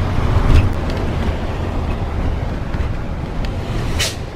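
Bus-based motorhome driving on a wet road, heard from inside the cab: a steady low engine drone under tyre and road noise. A short hiss cuts in about four seconds in.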